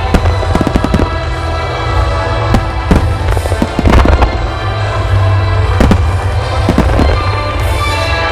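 Aerial fireworks bursting in quick succession, sharp bangs and crackle over deep rumbling booms, with music playing along with the display.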